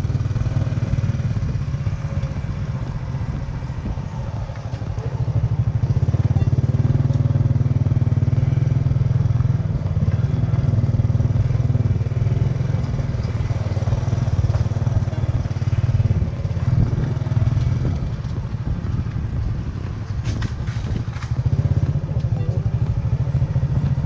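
Motorcycle engine running while riding, a steady low drone that swells and dips a little, with a few sharp rattles about twenty seconds in.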